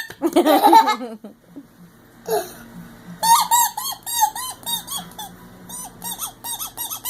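Toy horn giving a rapid run of short high squeaks, about three or four a second. Each squeak rises and falls in pitch. Near the start there is a brief burst of laughing.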